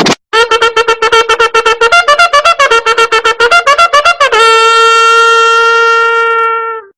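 Comic horn sound effect with a brassy, trumpet-like tone. A rapid string of short toots, about ten a second, stays mostly on one note with a few higher ones. It ends in one long held note that cuts off near the end.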